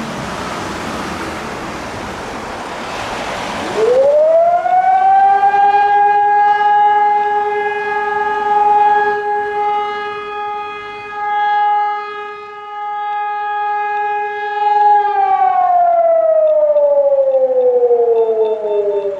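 Motor-driven alarm siren winding up about four seconds in, holding a steady two-note wail for about eleven seconds, then slowly winding down. It is sounding the alarm for the volunteer fire brigade. A steady hiss comes before the siren starts.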